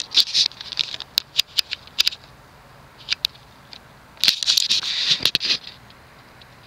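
Handling noise: a run of sharp clicks and taps, then a little over a second of scraping and rustling about four seconds in, as the fan is handled.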